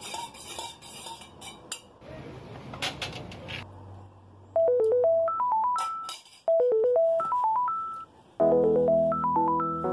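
A metal spoon clinks and stirs in a stainless steel cup for the first couple of seconds. About four and a half seconds in, a mobile phone ringtone starts: a short tune of beeping notes that steps up and down and repeats, playing fuller and louder near the end.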